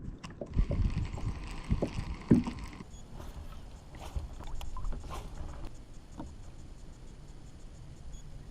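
Fishing reel being slowly cranked on a kayak during a slow swim-jig retrieve: small scattered clicks with a few light knocks. A steady hiss in the first three seconds stops suddenly.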